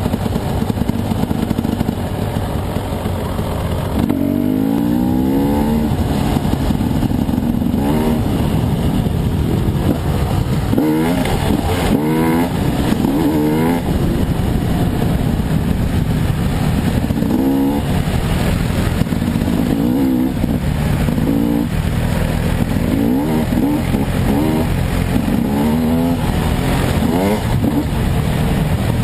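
Husqvarna dirt bike engine heard close up from the rider's position, running continuously and revving up and easing off again and again as it climbs through the gears: a rising note several times over.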